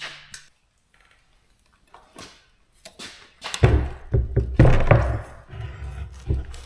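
Knocks and clunks of a folding electric bike being lifted and set onto a workbench, a few light taps first and then a louder run of heavy bumps from a little past halfway.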